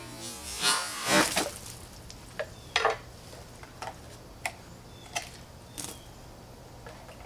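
Cut plastic water bottles being handled: a couple of rustling swishes in the first second or so, then a string of light, sharp plastic clicks and taps as the bottle pieces are picked up and set down on a wooden stool.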